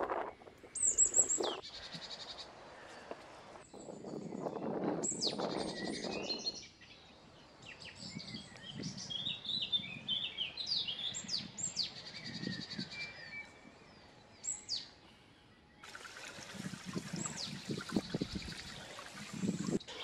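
Wild songbirds singing and calling: a run of short high chirps and whistles, with one louder call that slides down in pitch about a second in. A low rushing noise swells underneath for a couple of seconds a few seconds in, and again near the end.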